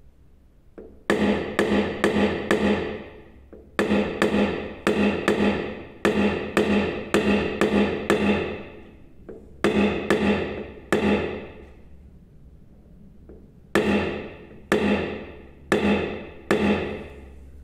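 Paintless dent repair tapping: a knockdown punch held on a car door's outer panel is struck with a hammer, each sharp tap setting the panel ringing briefly with a pitched tone. The taps come in runs of about three a second, separated by pauses, as high spots are knocked down level.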